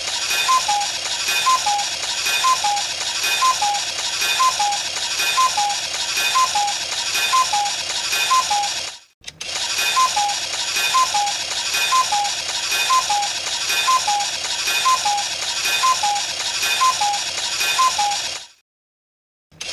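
Cuckoo clock going off: a two-note falling "cuckoo" call repeats about once a second over a steady rattle of the clock's works. It plays in two runs of about nine seconds, with a brief break between them, and stops shortly before the end.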